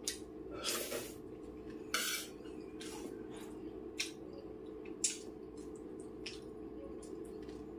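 Steel spoon scooping rice and clinking against a stainless steel plate: a few short, sharp clinks and scrapes, the loudest about two seconds in and about five seconds in.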